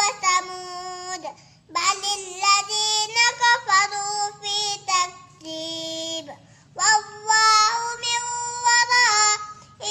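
A young boy reciting the Quran in a high, melodic chant, holding long notes that glide and waver. The phrases are broken by two short pauses for breath.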